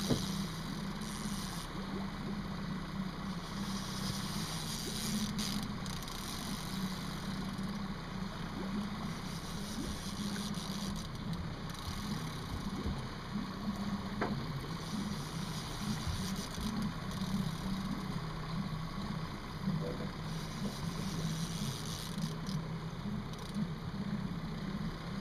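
Outboard motor idling steadily at the stern of a small fishing boat, a low even hum. Gusts of wind hit the microphone now and then.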